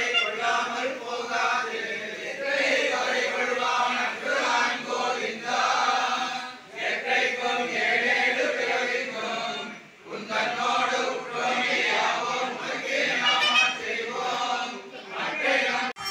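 A group of men chanting together in a steady, sung temple recitation, with short pauses about six and ten seconds in.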